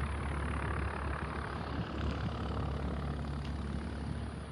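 Steady drone of a small single-engine propeller plane's piston engine running, its propeller turning.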